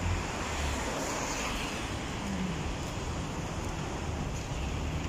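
Steady city street traffic noise, a constant rumble and hiss of passing road vehicles.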